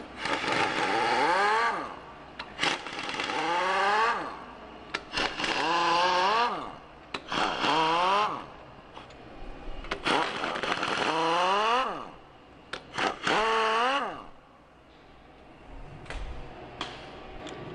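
Impact wrench running cylinder head bolts out of an engine with a triple-square socket: about six bursts, each with the motor whine rising in pitch as the loosened bolt spins free, with short clicks of the socket and bolts between them.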